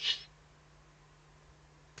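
Eurasian eagle-owl chick giving one short, harsh hissing call at the start, the rasping food-begging call of an owlet beside an adult with prey.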